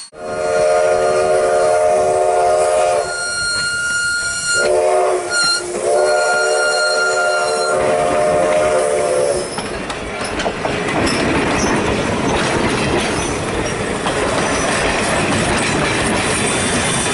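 Whistle of ex-CPR 4-4-0 steam locomotive No. 136: a long blast, a shorter blast that dips in pitch as it starts, a brief toot, then another long blast. From about nine seconds in, the train's coaches and tender roll past close by with a steady noise of wheels on the rails.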